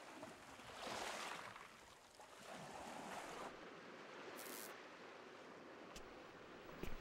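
Faint sea waves washing in slow swells, followed by a short hiss about four and a half seconds in and two small clicks near the end.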